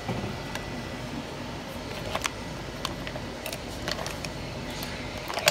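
Scattered light clicks and knocks of crab legs and shellfish shells being packed by hand into a metal stockpot, over a steady hum.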